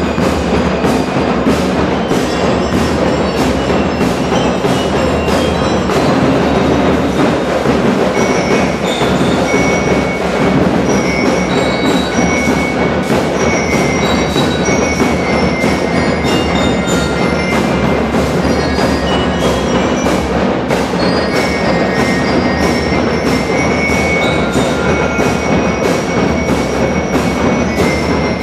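School marching band of many marching drums, snare and bass drums, beating a steady march rhythm together, with bell lyres playing a high melody of short ringing notes over the drumming.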